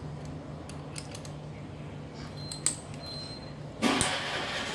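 Light metallic clicks and clinks of hand tools and small parts on a bare Honda C800 engine crankcase, a few separate ticks, with a louder rattling clatter of parts being handled near the end.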